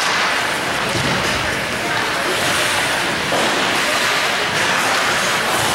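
Ice hockey rink ambience during play: a steady, loud wash of arena noise with indistinct voices and faint music under it.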